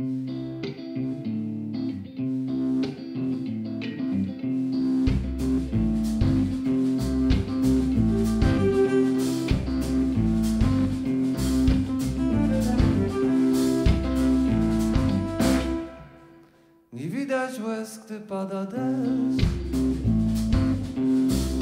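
A rock-blues band plays the instrumental opening of a slow, melancholy song: electric guitar, with bass guitar and drums coming in about five seconds in and a violin playing over them. The band stops briefly near the two-thirds mark, then comes back in.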